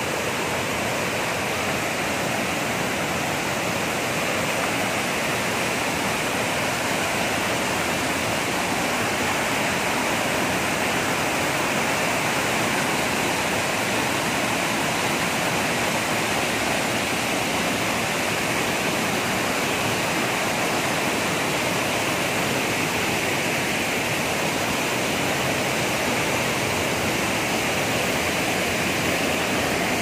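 Waterfall and the rapids below it rushing steadily over rocks, a loud, even wash of water noise that does not change.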